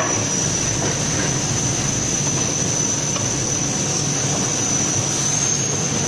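Muller Martini Amigo Plus perfect binder running: a steady mechanical din with a constant high-pitched whine over a low hum, and a few faint clicks.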